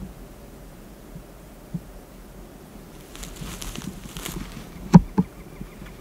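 Faint spit and drum of a strutting wild turkey tom, a low throbbing hum under the quiet background. About five seconds in, two sharp clicks close by are the loudest sounds.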